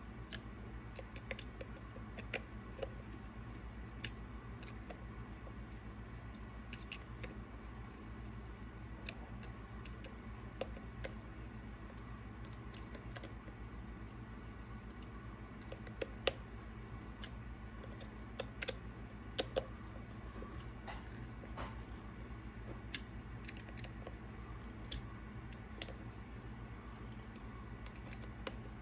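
Small hex driver clicking against the screws of an RC Hop Ups 1.9-inch CNC aluminium beadlock wheel as the beadlock ring is screwed down: scattered, irregular light clicks, a few sharper ones about two-thirds of the way through, over a steady low hum.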